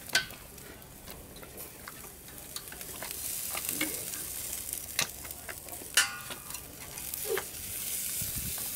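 Steak sizzling on a rail-mounted stainless steel propane kettle grill. The hiss grows louder a few seconds in, and there are a few sharp metal clicks of tongs on the grill.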